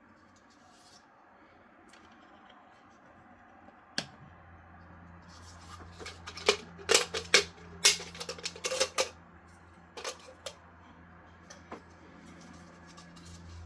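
PLA support material being snapped and clipped off a 3D print. A single click comes about four seconds in, then a quick cluster of sharp cracks and clicks, and a few scattered ones later.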